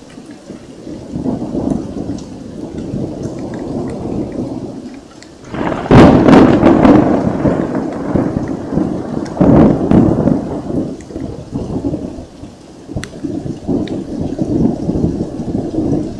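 Thunder in a rainstorm. A low rolling rumble builds, then a sharp, loud thunderclap breaks about six seconds in. Rolling peals follow, with another surge around ten seconds, while rain falls with scattered drips.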